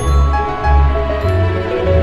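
Background music: held melody notes over deep bass notes that change every half second or so.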